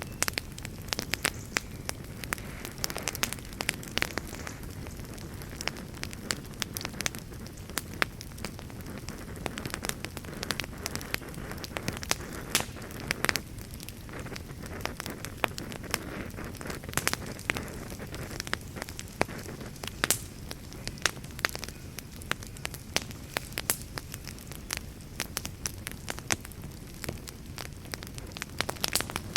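Wood fire burning in a fireplace: a steady low rumble of the flames with frequent sharp, irregular crackles and pops from the burning wood.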